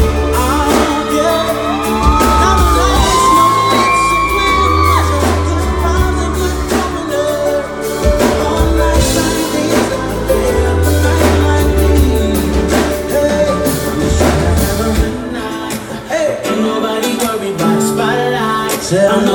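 Live R&B/pop band playing through a concert PA with a male lead singer: heavy bass, drum kit, keyboards and guitar under gliding sung lines. The deep bass drops away about fifteen seconds in.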